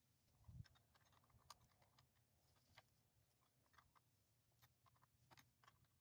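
Near silence with faint, irregular small clicks and scrapes: a hand wrench working a bolt loose on a metal bracket.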